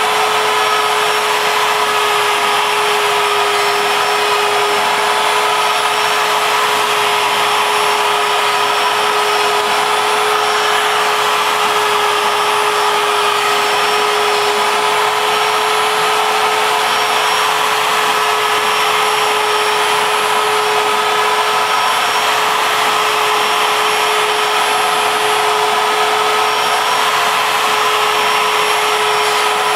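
ShapeOko CNC mill's router spindle running at a constant speed while the bit cuts MDF, together with a vacuum drawing sawdust through the dust shoe. A steady whine that holds one pitch.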